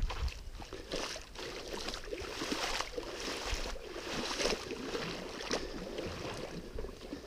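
Shallow stream water splashing and sloshing irregularly around a person's legs as he wades along the streambed.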